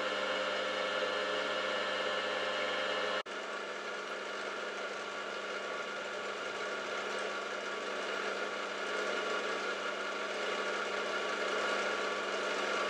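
Milling machine spindle running steadily with an edge finder in the chuck: a constant motor hum with several steady tones. About three seconds in it cuts out for an instant, then carries on slightly quieter and rougher.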